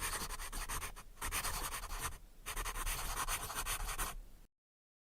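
A pen writing on paper: quick scratchy strokes in three runs, with short pauses about a second in and a little after two seconds. It stops suddenly near the end.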